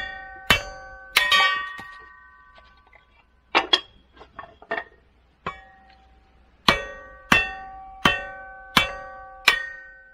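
Hammer blows on firewood set in an iron kindling splitter, splitting it into kindling. Each blow is a sharp metallic clang that rings on briefly; about a dozen strikes, coming in steady runs roughly two-thirds of a second apart, with a pause and a few lighter knocks in the middle.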